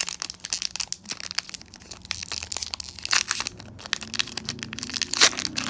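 Foil wrapper of a Pokémon trading card booster pack crinkling and tearing as it is opened by hand, with a dense run of irregular crackles.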